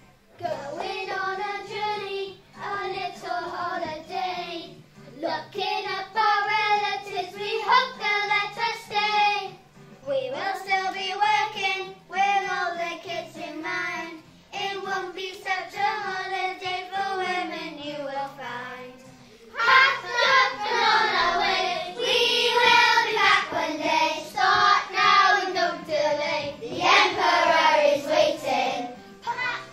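A group of young children singing a song together in unison over a musical accompaniment, in phrases of a few seconds with short breaks between them; the singing gets louder about twenty seconds in.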